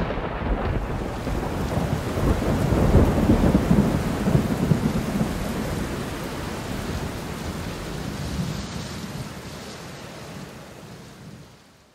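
Thunder rumbling after a crack, swelling about three seconds in and then slowly dying away to silence, with rain hissing underneath.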